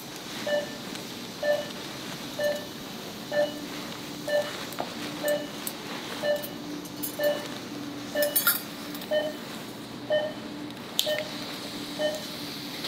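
Operating-theatre patient monitor beeping steadily about once a second, the pulse-oximeter tone keeping time with the patient's heartbeat, over a low steady hum. A few sharp metallic clicks of steel surgical instruments, about eight seconds in and again near eleven.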